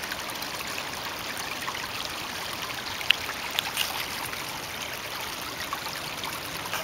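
Muddy floodwater running in a shallow stream over the forest floor: a steady rushing of water, with a few brief ticks about halfway through.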